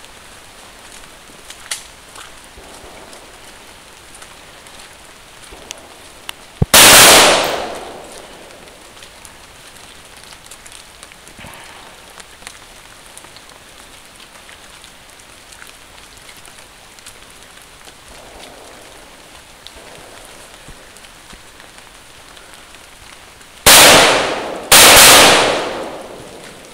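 Three loud, sudden bangs: one about seven seconds in, then two about a second apart near the end, each dying away over about a second, over a quiet outdoor background.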